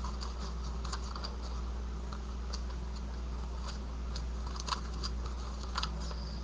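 Scattered light clicks and taps, a few sharper than the rest, over a steady low hum.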